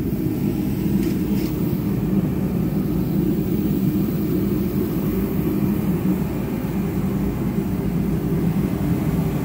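An engine running steadily at idle: an even, low rumble.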